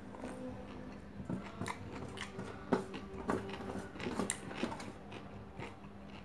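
Close-miked chewing of a mouthful of fried rice and chicken, with irregular wet clicks and smacks, while fingers gather rice on a stainless steel tray. A faint steady low hum runs underneath.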